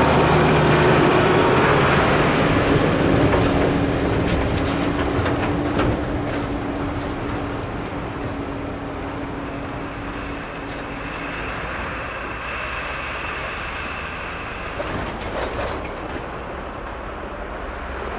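Farm tractor pulling a large trailer drives past and away on a snowy road; the engine and the trailer's clatter fade over several seconds, with a few knocks along the way.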